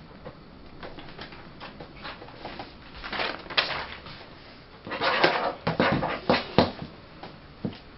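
Handling noises: scattered rustles and light knocks, with louder rustling about three seconds in and again from about five seconds in.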